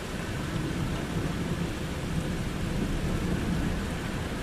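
Steady rain with a low, rolling rumble of thunder, strongest in the middle.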